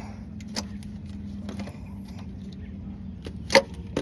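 Scattered clicks and knocks of hand tools working on the car, the loudest about three and a half seconds in, over a steady low hum.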